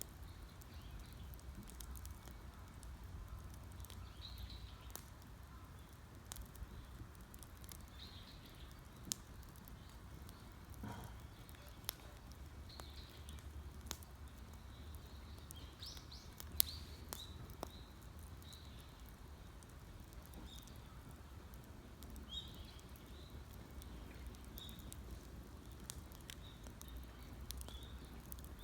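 Wood campfire crackling, with irregular sharp pops and snaps, the loudest about 16 seconds in. Small birds chirp repeatedly in the background over a low steady rumble.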